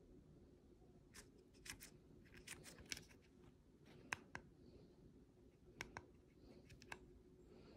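A dozen or more faint, sharp clicks of the buttons on a Flipsky VX2 Pro electric-skateboard screen remote, pressed over and over in small clusters to step a setting up, against near-silent room tone.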